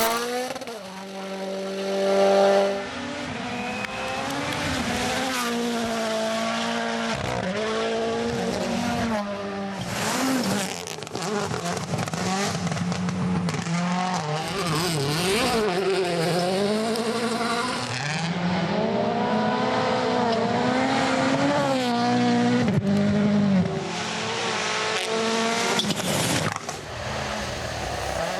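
Rally car engine driven hard, its revs climbing and dropping again and again with quick gear changes, over a steady hiss of tyre and road noise.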